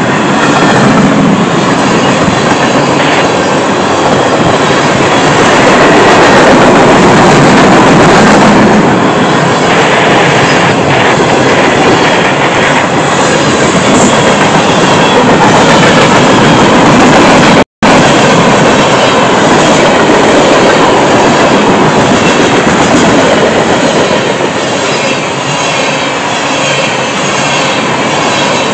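Loaded freight train cars (autoracks, then tank cars) rolling past close by: a loud, steady noise of steel wheels running on the rails. There is a split-second dropout about two-thirds of the way through.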